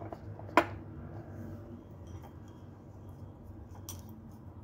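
A single sharp clink of metal cutlery against a ceramic soup bowl about half a second in, with a fainter tick near the end, over a low steady hum.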